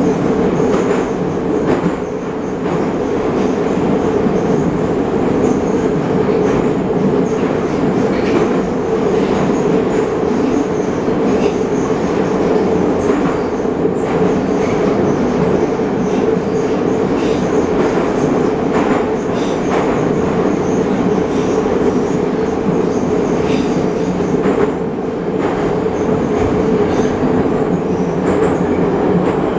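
Inside an 81-717.5 metro car running at speed through a tunnel: a steady, loud rumble from the wheels and running gear, with scattered clicks of the wheels passing over rail joints.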